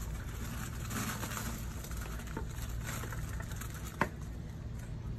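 Faint rustling of fern and eucalyptus greens as they are handled in a glass vase, over a steady low hum, with a single sharp click about four seconds in.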